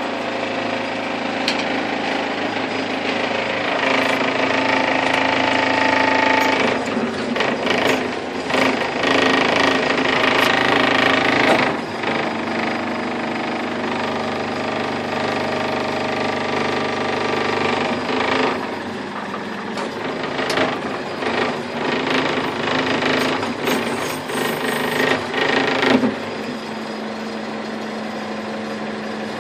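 Caterpillar 416C IT backhoe loader's diesel engine running under varying load, its note rising and falling as the machine is worked, with intermittent knocks and clanks in the second half.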